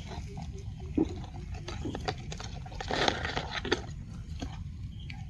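Metal tongs scraping and clicking lightly against soil and twigs as they close on a millipede: a few scattered short clicks and scratches, busiest about three seconds in, over a low steady rumble.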